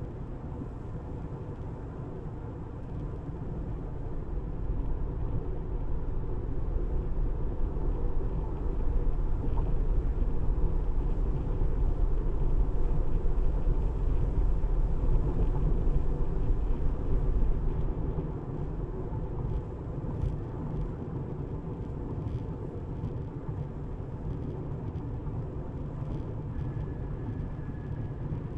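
Tyre and road noise of a Tesla electric car on the move: a steady low rumble that grows louder from about four seconds in and eases off again around eighteen seconds.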